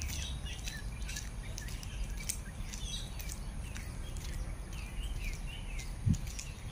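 Birds chirping, many short wavering calls overlapping one another, with sharp ticking notes among them and a low rumble underneath.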